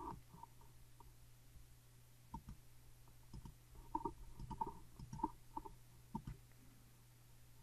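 Soft computer mouse clicks, about ten of them, most bunched between two and six seconds in, over a faint steady low hum.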